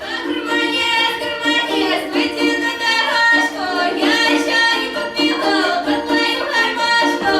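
Female voice singing a melodic line of long held notes with gliding changes of pitch, over instrumental accompaniment.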